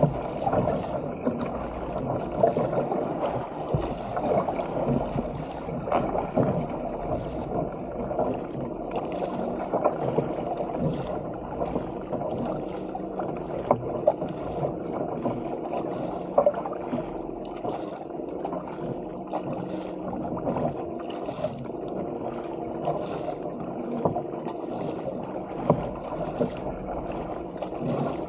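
Sea water rushing and splashing along a fishing kayak's hull as it is paddled at speed over choppy water. Irregular sharper splashes come from the paddle strokes.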